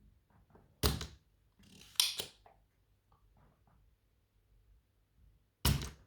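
Spring-loaded solder sucker (desoldering pump) firing with a sharp snap about a second in and again near the end, pulling molten solder out of the old battery's joints. Between the two snaps there is a short hiss with two clicks.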